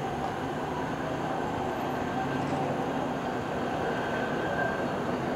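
GM crew-cab hi-rail maintenance-of-way pickup travelling along the rails, its engine and steel guide wheels on the track making a steady running noise.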